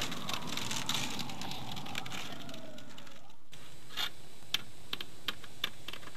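Scattered light clicks and taps over a steady hiss, with a faint falling tone in the first half; the background drops suddenly about three and a half seconds in, leaving a few separate clicks.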